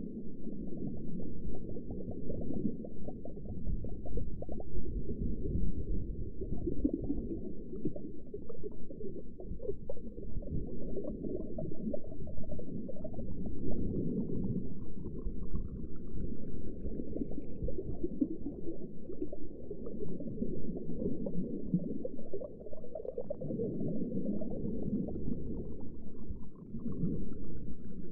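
Underwater ambience: a steady, muffled low rumble and gurgle of water, with faint rising chirps about halfway through and again near the end.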